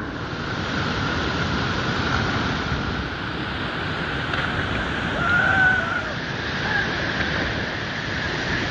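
Waterfall: the steady rush of falling water.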